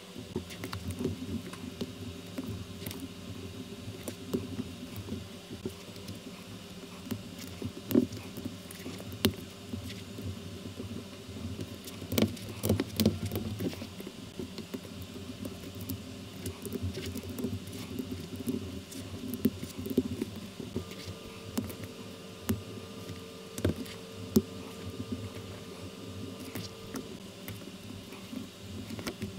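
Plastic LEGO-compatible building bricks clicking and clattering as they are handled and pressed together, with scattered sharp clicks over a steady background hiss.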